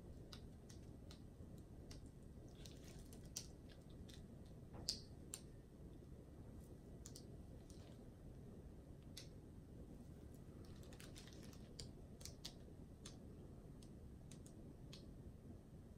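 Near silence broken by scattered faint clicks and light taps from a painted canvas being tilted and handled with gloved hands. The loudest tap comes about five seconds in, and a short cluster follows near the two-thirds mark.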